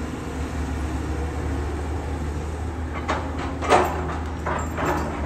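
Cat 320D hydraulic excavator's diesel engine running steadily, with a few sharp scrapes and clunks of the bucket working the soil in the second half, the loudest about three and a half seconds in.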